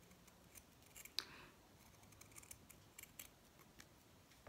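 Scissors snipping through red felt, cutting out an oval: faint, irregular clicks of the blades closing, with one sharper snip about a second in.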